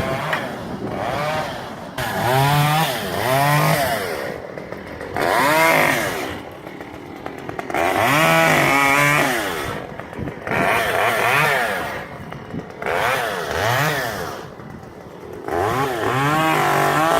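Chainsaw revving up and dropping back about seven times in one- to two-second bursts, its pitch rising and falling with each burst.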